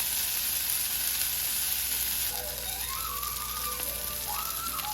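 Food sizzling in a hot frying pan, a steady hiss.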